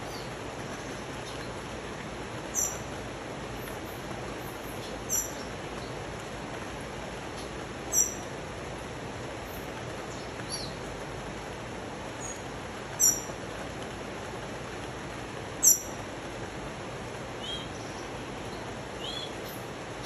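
Steady rush of rain and a river in a rainforest, with a bird repeating a short, high, falling chirp five times, every two to three seconds; softer, lower chirps come near the end.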